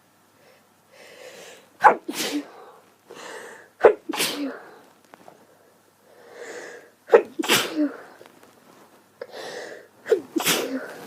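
A woman's sneezing fit from a heavy cold: four sneezes in a row, each preceded by a quick in-breath and ending in a loud, sharp burst with a short vocal tail.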